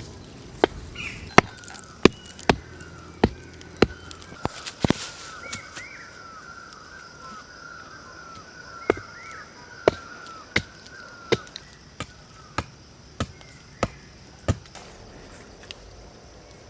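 Chopping with a knife: sharp, separate strokes, one or two a second, stopping for a few seconds midway and then going on.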